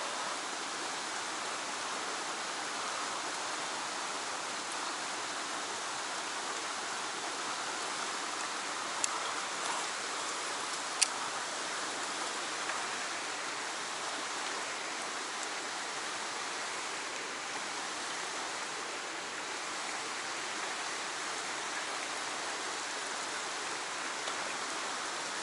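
Fast-flowing stream water rushing steadily, with two short sharp clicks in the middle.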